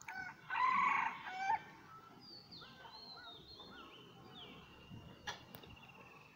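A rooster crows once, loud and about a second long, right at the start; after it, small birds keep up short chirps and falling whistles.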